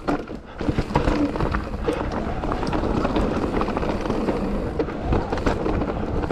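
Mountain bike riding down a rough dirt and stone trail: tyres rumbling over the ground, with constant rattles and clacks from the bike as it goes over rocks and roots, heard through a helmet-mounted action camera.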